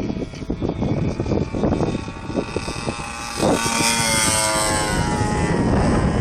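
Radio-controlled Edge 540 model aerobatic plane in flight, its motor and propeller heard through wind noise on the microphone. About halfway the motor's note comes through clearly as a steady pitched drone that falls slightly in pitch.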